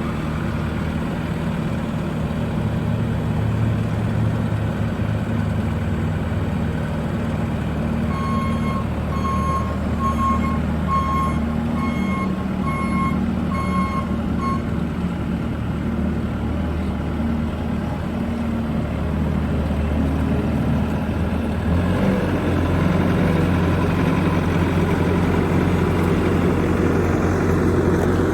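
Bobcat S550 skid steer's diesel engine running steadily, with its reversing alarm beeping about eight times, evenly spaced, in the middle. Near the end the engine note rises and gets louder.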